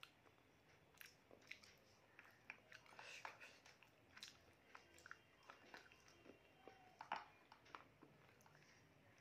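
Faint, irregular chewing and mouth smacks of a person eating rice and mutton curry by hand, heard as scattered small wet clicks.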